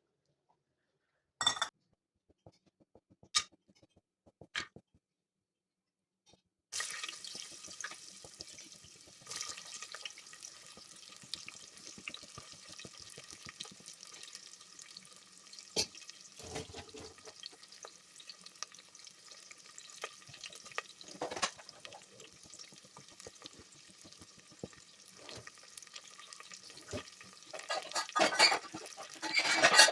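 A few sharp clicks, then from about seven seconds in a continuous sizzle and crackle of food frying in oil in a pan, with stirring sounds getting louder near the end.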